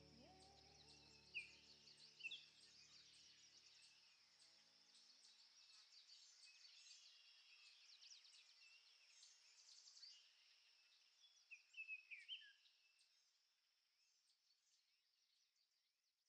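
Faint birds chirping over a steady high-pitched hiss of outdoor ambience, with the tail of a music track fading out in the first few seconds. The sound cuts to silence about 13 seconds in.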